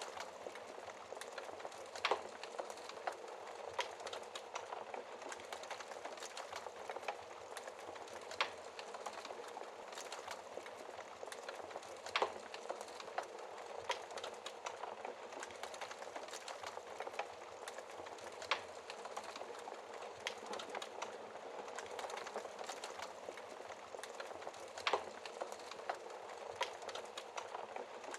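Wood fire burning in a fireplace: a steady hiss with constant small crackles and about five louder pops spread through it.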